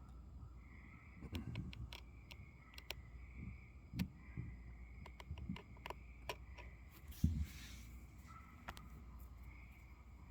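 Night insects chirping in a steady, pulsing trill, with scattered sharp clicks and low thumps; the loudest thump comes about seven seconds in.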